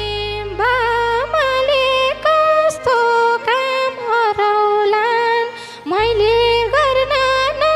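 Nepali dohori folk song: a woman singing a high, ornamented melody with live instrumental accompaniment, a low steady bass note coming back in near the end.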